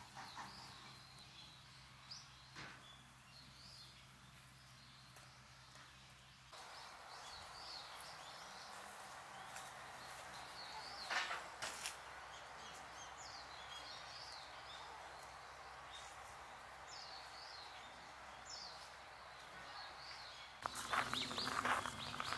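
Outdoor ambience with scattered short bird chirps over a steady background noise; a low hum drops out about six seconds in, and footsteps start near the end.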